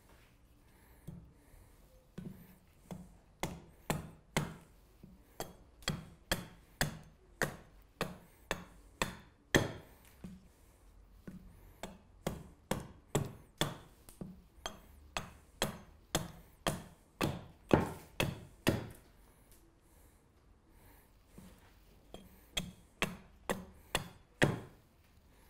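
Small carving axe hewing an alder spoon blank against a wooden chopping stump: a steady run of sharp chops, about two a second. The chops stop for a few seconds, then a last handful of blows follows.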